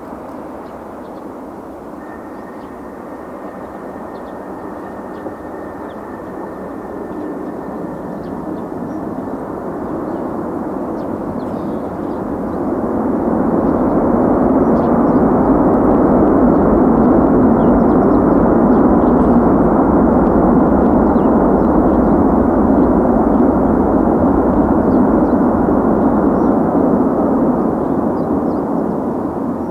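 Jet engines of an Airbus A330-200 during the landing rollout just after touchdown: a broad, steady rushing roar. It swells to its loudest about thirteen seconds in, holds there, and eases off near the end. A faint, thin, steady whine sits over it for the first several seconds.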